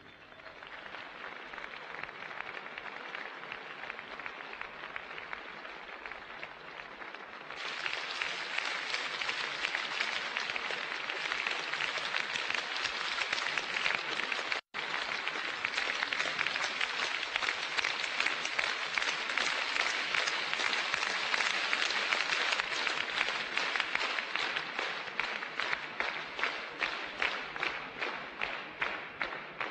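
Concert audience applauding after a song. The applause swells about a quarter of the way in, cuts out for an instant near the middle, and in the second half turns into rhythmic clapping in unison.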